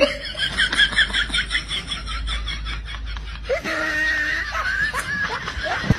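Laughter: a quick run of high-pitched giggles in the first two seconds, then a few short voiced sounds.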